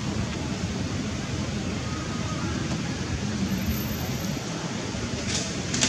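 Steady rushing background noise, with a few faint clicks near the end.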